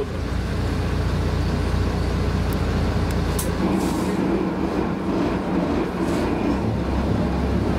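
A tour riverboat's inboard engine running steadily with a low rumble.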